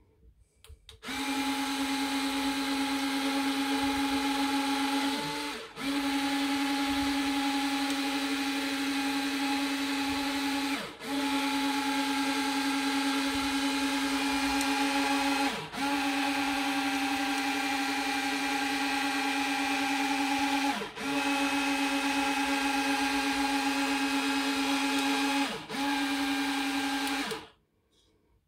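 Small electric gear motors in a model battleship's turret drive whining steadily. About every five seconds the whine briefly drops in pitch and comes back, as the drive slows and restarts during a turret test.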